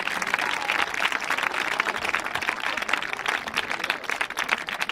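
Audience applauding: many hands clapping in a dense, uneven patter.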